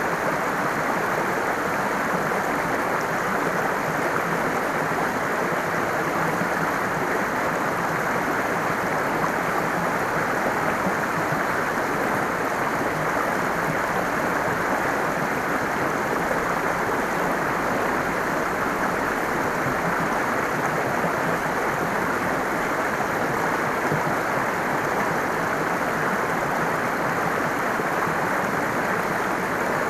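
Flowing water running steadily, a continuous even rush with no changes.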